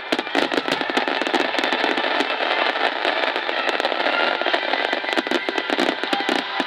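Starmine fireworks barrage: a rapid, continuous string of shell bursts and crackling, with music playing underneath.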